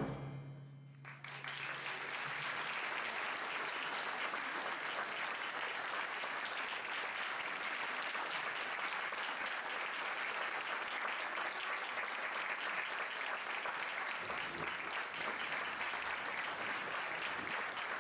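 A wind band's final low note fades away in the first second or two, then the audience applauds steadily.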